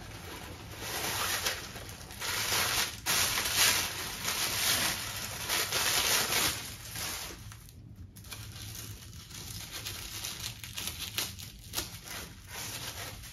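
Packaging rustling and crinkling as a boxed handbag is unwrapped by hand. It is busiest for the first six seconds or so, then turns into softer, scattered rustles with a few light clicks.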